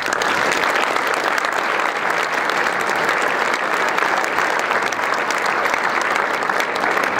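Audience applauding, a dense clapping that starts suddenly and holds steady.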